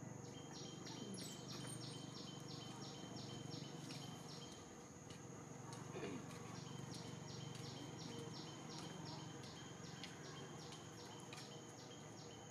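Rhythmic high chirping, about four chirps a second, in two runs with a break of about two seconds near the middle. It sits over a steady high-pitched drone and a low background hum.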